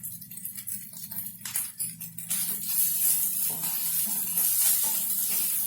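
Fried rice sizzling in a pan while a spatula stirs it, scraping and clicking against the pan; the sizzle grows louder about two seconds in. A steady low hum runs underneath.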